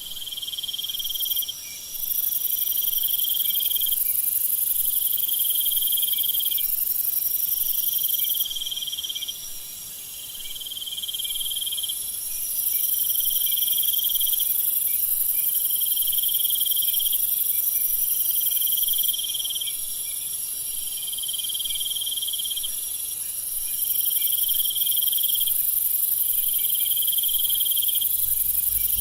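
Night jungle chorus of crickets and other insects. A very high, continuous trill drops out twice for a few seconds, while a lower trill comes in even phrases of about a second and a half, repeating every two seconds or so, and a third trill between them sounds on and off.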